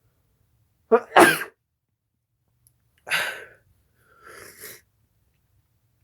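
A person sneezing: a loud sneeze about a second in, a second, quieter sneeze about two seconds later, then a softer breathy sound.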